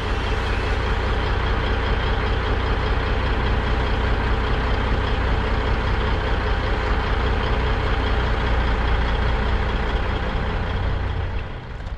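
A crane truck's diesel engine runs steadily, a constant low hum with a steady whine above it. Beneath it, a battery chainsaw cuts high up in the tree. Near the end the sound drops off abruptly.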